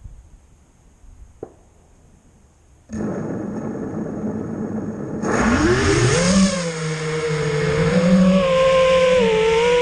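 Brushless motors of an FPV racing quadcopter (BR2205 2300KV) spinning up: they start at an idle about three seconds in, then throttle up about two seconds later with a rising whine and run on at a steady whine that wavers slightly in pitch.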